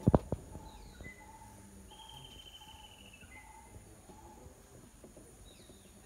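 A few sharp knocks in the first half second, then faint birdsong: a short high trill, brief whistles and falling chirps from small birds, over a soft high note that keeps repeating.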